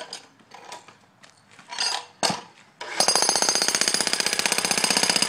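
Jackhammer starting up about three seconds in and hammering rapidly and steadily, breaking up the ground. Before it starts there are a few scattered knocks.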